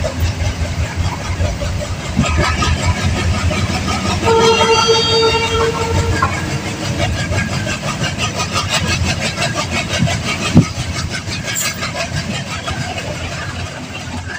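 Passenger train running, its wheels clattering steadily over the rails, heard from an open coach doorway. A train horn sounds for about a second and a half about four seconds in, and a single sharp bang comes near the end.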